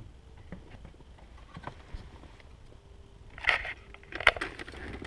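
Hands working loose plastic parts around a car's brake pedal: scattered small clicks and knocks, then two louder scraping, rustling bursts about three and a half and four and a quarter seconds in.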